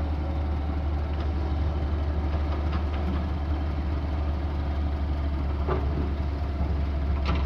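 Excavator's diesel engine running steadily at idle, a low even drone, with a couple of faint knocks near the end.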